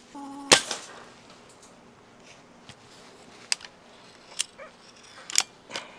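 Crosman Magfire Mission nitro-piston air rifle fired once, a sharp crack about half a second in. It is followed by a few light metallic clicks as the barrel is broken open to cock and reload it.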